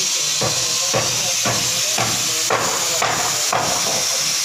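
A steady hiss with a regular stroke or knock about twice a second.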